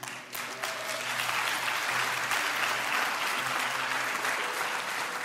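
Church congregation applauding, building up over the first second and then holding steady, with soft music sustained underneath.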